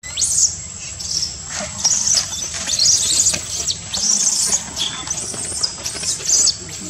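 Infant macaque screaming in distress, a rapid run of shrill squealing calls, some rising and falling in pitch, with barely a pause between them.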